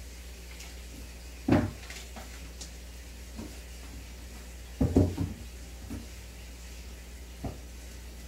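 Steady low hum of an aquarium air pump running sponge filters, with a faint hiss of bubbling. Several dull knocks: one about a second and a half in, a double knock around the middle, and lighter ones later.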